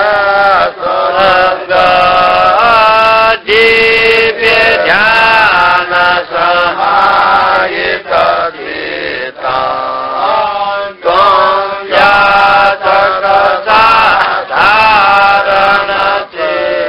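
A man's voice chanting a Sanskrit hymn verse to a slow melodic tune. The notes are held and glide between pitches, and the phrases are split by short breaths.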